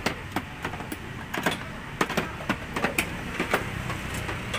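Irregular light clicks and knocks of Honda PCX plastic body panels and fittings being handled and pressed into place during reassembly, over a low steady hum.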